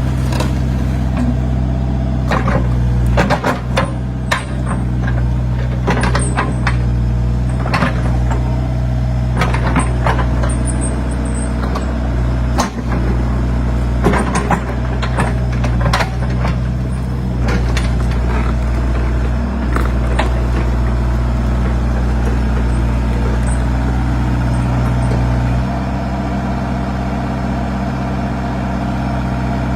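Hyundai excavator's diesel engine running steadily under load while it levels soil, with scattered clanks and knocks from the working arm and bucket through the first two-thirds. About 25 s in the engine's low drone drops as it eases off.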